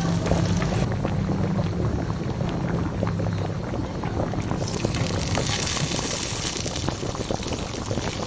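Fried rice sizzling in a hot pan, with dense small crackles over a steady low hum.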